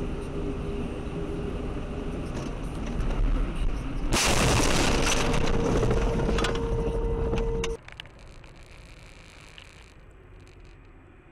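Car dashcam recording: steady road noise, then about four seconds in a sudden loud crash of a car collision with debris hitting the car, a steady tone held through the crash for a few seconds. It cuts off sharply to quiet road noise inside another car.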